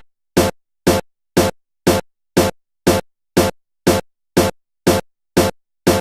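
Electronic background music: a short, punchy beat about twice a second, with silence between the beats.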